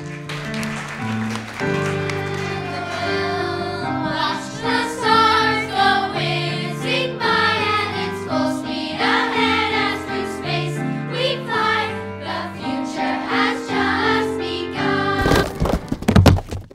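A children's choir singing a song with piano accompaniment. Near the end the music stops and a burst of applause breaks out.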